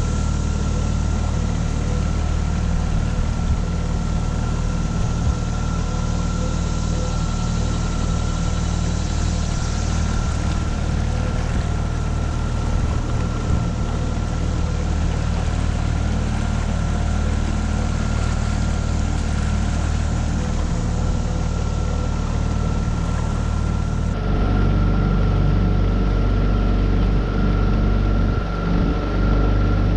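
Tohatsu 9.8 hp four-stroke outboard motor running steadily as the small V-bottom boat travels under way, with a continuous drone and a steady whine. About three-quarters of the way through, the low rumble grows louder.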